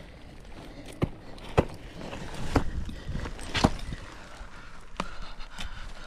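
Ice axes and crampons striking frozen waterfall ice: about five sharp, unevenly spaced strikes as a climber swings and kicks in.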